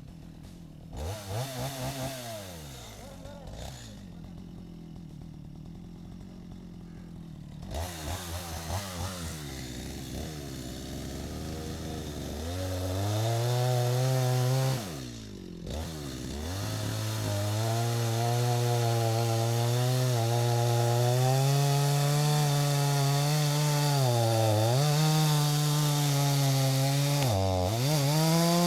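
Stihl MS250 two-stroke chainsaw idling with short throttle blips, then held at high revs from about twelve seconds in, with brief dips in pitch, as the chain cuts into wood.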